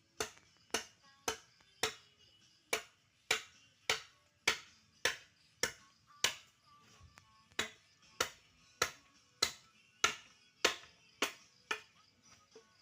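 Background music with a sharp snap-like click on each beat, a little under two a second, dropping out briefly twice, over faint soft tones.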